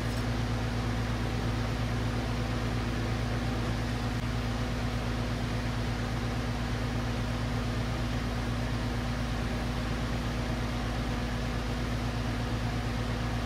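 Brazing torch flame hissing steadily, with a low steady hum underneath.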